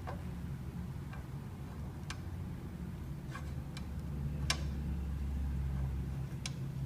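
Several short, sharp clicks at irregular spacing over a low steady hum that grows louder about halfway through. The loudest click comes a little after the middle.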